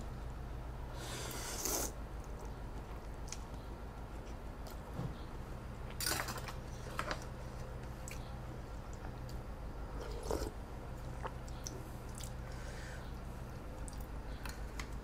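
Close-miked eating of rice noodles in coconut-milk curry: a noodle slurp about a second in, then chewing and mouth sounds. A few sharp clicks of cutlery are heard, over a low steady hum.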